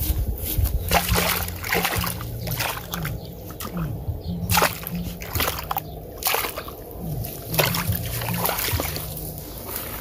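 Water splashing and sloshing in repeated irregular surges, over low sustained tones that shift in pitch every second or so.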